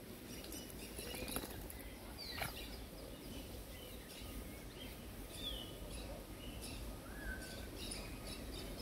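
Small birds chirping in scattered short calls and brief whistles over a faint, steady background of outdoor noise.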